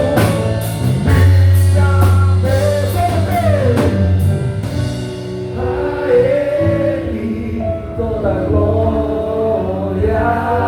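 Live rock band playing with a sung vocal. Drums and cymbal hits drive the first few seconds, then drop out about halfway through, leaving held bass and guitar chords under the singing.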